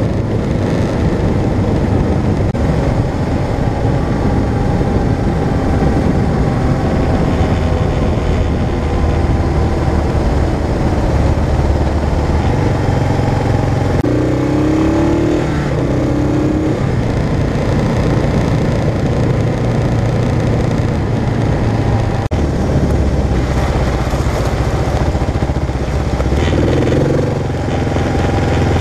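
Kawasaki KLR650's single-cylinder four-stroke engine running steadily while the motorcycle travels along a gravel road, with wind and tyre noise over the microphone. The engine note shifts a couple of times, about halfway through and near the end.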